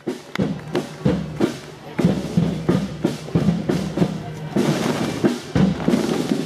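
Parade drums beating a steady marching rhythm of about two strokes a second, accompanying flag throwers.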